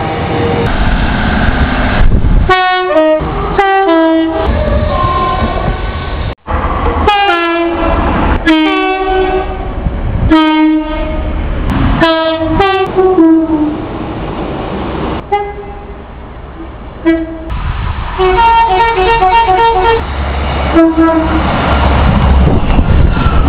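Train horns sounding a string of separate blasts, several of them two-tone, stepping from a higher note to a lower one, over the low rumble of a train. About 18 seconds in comes a quick run of short alternating horn notes, and about six seconds in the sound drops out for a moment where two recordings are joined.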